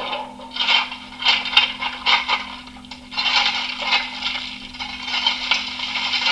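Coal-shovelling sound effect from the sound decoder of a Trix H0 model class 44 steam locomotive: a run of short shovel scrapes in coal, then a longer stretch of scraping from about three seconds in, over a steady low hum.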